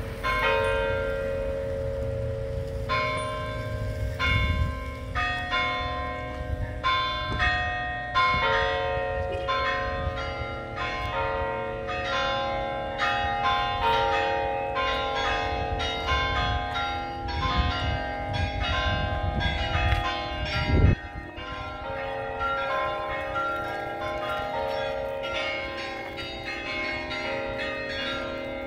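A peal of several church tower bells of different pitches, struck in quick succession so that their ringing overlaps. A brief low thump cuts in about two-thirds of the way through.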